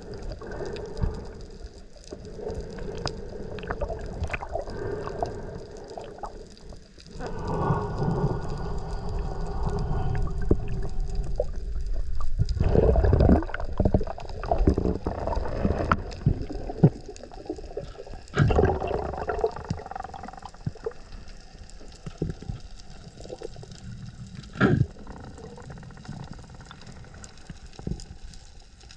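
Water rushing and gurgling around an underwater camera on a free dive, rising and falling in loud swells, with a sharp knock near the end.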